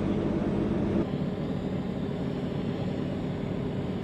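A steady engine hum that changes abruptly in tone and drops slightly in level about a second in, then carries on steadily.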